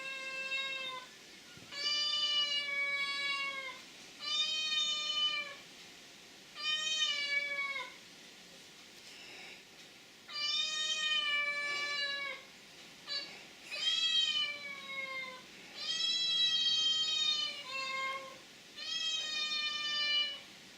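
A cat meowing over and over, with long drawn-out meows every two seconds or so, each sliding down in pitch at its end, and a couple of short meows in between.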